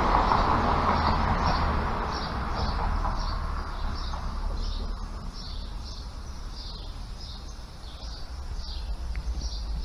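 Small birds chirping in short, repeated high notes, about two a second, over a low steady street rumble. A broad rush of noise fades away over the first few seconds.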